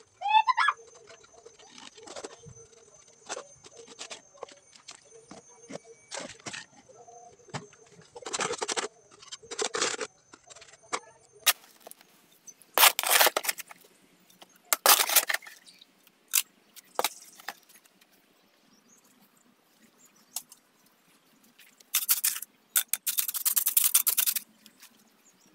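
Mason's trowel scraping mortar and knocking on concrete bricks and a mortar pan: scattered clicks and taps, then several longer, louder scrapes in the second half.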